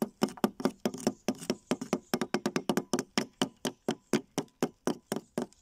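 Small metal-headed hammers and a chisel from a fossil-dig kit tapping on a plaster excavation block. Quick, uneven strikes from two people working at once, several a second.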